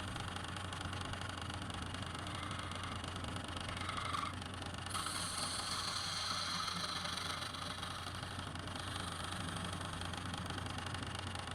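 Woodturning lathe running with a steady hum under a hiss; the hiss grows brighter about five seconds in.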